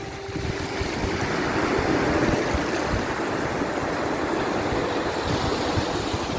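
Sea waves breaking and washing ashore in a steady rush, swelling about two seconds in.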